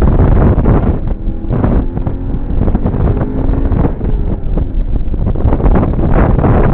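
Heavy wind buffeting on the microphone inside a Cadillac CTS-V lapping a race track at speed, a dense low rumble throughout. The engine note shows faintly beneath it at times.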